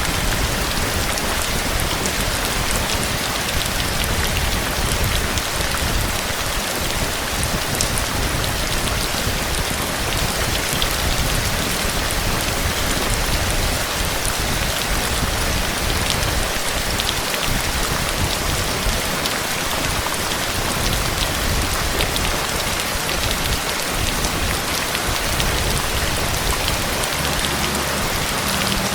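Heavy rain falling steadily, a dense even hiss with many small drop impacts and a fluctuating low rumble underneath.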